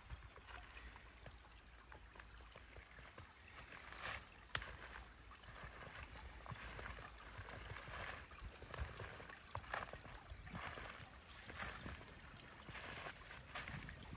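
Shallow woodland stream running and trickling over stones, with a few sharp clicks, the loudest about four and a half seconds in.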